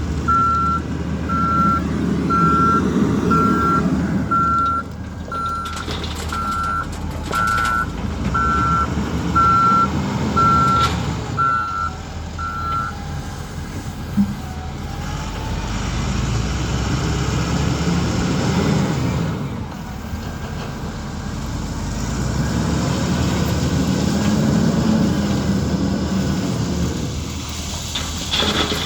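Heavy diesel machinery working, an excavator and a wheel loader, with the engine note swelling and easing under load several times. A reversing alarm beeps about once a second for the first thirteen seconds, then stops.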